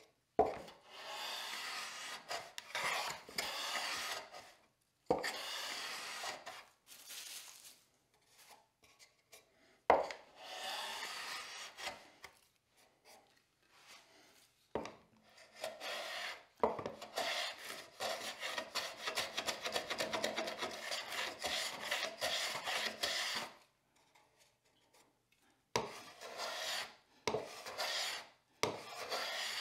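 Hand plane shaving the edges of a small wooden box, in a series of rasping strokes with pauses between. A knock starts each spell as the plane lands. Most spells last a second or a few seconds, and one long run of quick back-and-forth strokes comes about two-thirds of the way through.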